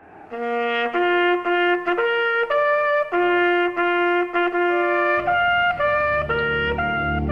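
Solo trumpet playing a slow military bugle-call melody of held notes. About five seconds in, a low sustained music pad enters beneath it.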